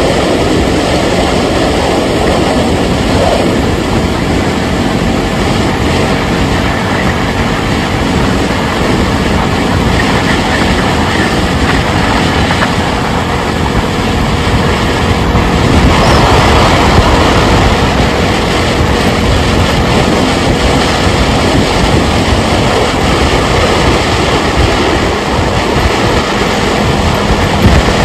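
Steady rumble and rush of a vehicle on the move, road and wind noise, getting a little louder just past halfway.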